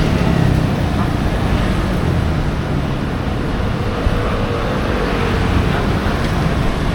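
Steady din of a busy night-market street: traffic noise mixed with the chatter of passing people.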